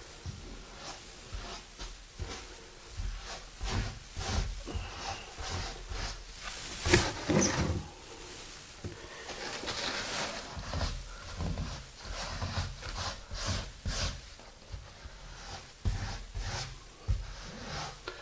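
Grout being worked into a tile joint with a trowel: irregular scrapes, rubs and light knocks of the tool against the ceramic tile, with one louder scrape about seven seconds in.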